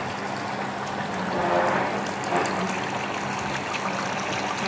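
Chicken curry bubbling in a pot on the stove: a steady simmer full of small pops, over a low steady hum.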